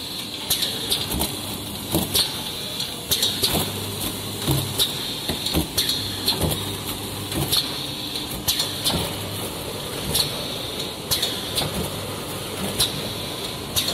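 Automatic maxi roll paper shrink-wrapping machine running: a steady mechanical hum and high hiss, broken by frequent sharp clacks from its moving parts, about one or two a second.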